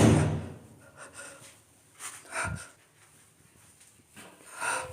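A few faint, short, breathy sobbing sounds with quiet between them, taken for someone crying.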